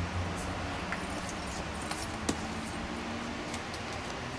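Light metallic jingling and small clicks of a horse's tack, from buckles and bit, as the rider works down at the horse's legs, over a steady low hum.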